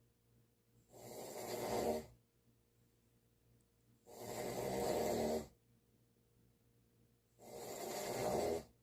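Snoring: three snores about three seconds apart, each a little over a second long, with near quiet between them.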